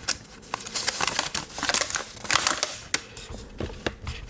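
Paper instruction leaflets being unfolded and handled, with irregular crinkling and rustling and sharp little crackles.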